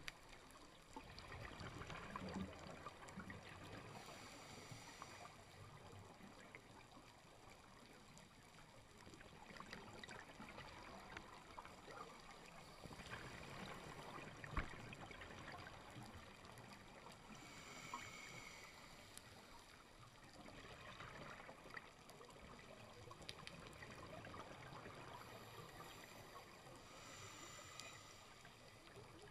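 Faint underwater sound, near silence: a low hiss with scattered clicks and a few short bubbling bursts from a scuba diver's exhaled air.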